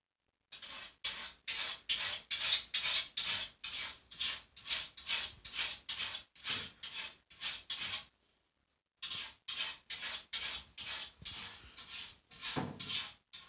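A cat scratching in its litter tray to bury its waste, a quick series of scraping strokes about two a second, with a short break in the middle.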